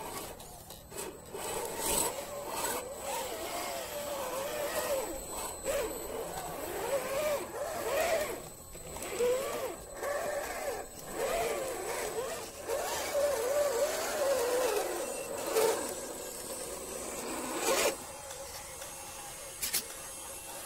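Electric motor and gearbox of a scale RC crawler whining, the pitch rising and falling as the throttle is worked, with scattered scrapes and clicks of the tyres on rock and mud. The whine stops a few seconds before the end.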